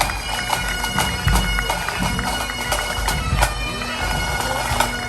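Bagpipes playing a tune over steady drone tones, with sharp beats throughout.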